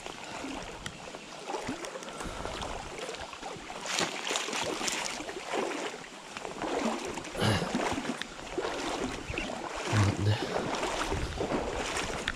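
Shallow river water sloshing and splashing around a landing net being moved through it with a chub inside. There is a sharper splash about seven and a half seconds in, and low bumps of wind or handling on the microphone.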